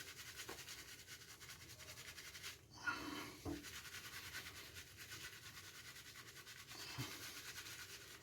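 Faint swishing and rubbing of a shaving brush working soap lather, with a couple of brief soft rustles.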